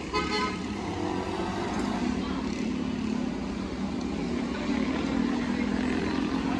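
Street traffic: small motorcycle and tricycle engines running past, with a heavier vehicle's engine getting louder in the second half.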